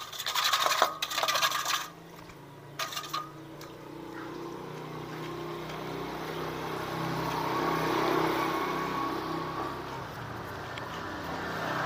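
A few sharp clattering noises in the first two seconds. Then a vehicle engine hum that slowly grows louder, is loudest about eight seconds in, and eases off.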